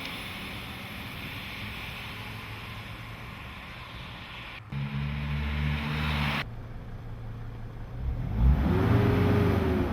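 Dodge/Mercedes-Benz Sprinter 2.7 L CDI five-cylinder turbo diesel running, with abrupt breaks about halfway through; near the end the engine is revved up and back down. The owner blames the van's loss of power on a faulty turbo actuator, with an underboost code (P0299) set.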